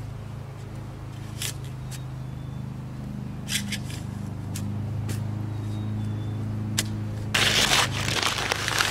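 A garden hoe scraping and chopping into loose, tilled soil in a handful of separate strokes, over a steady low engine drone. About seven seconds in, a paper bag of seed potatoes crinkles loudly as it is handled.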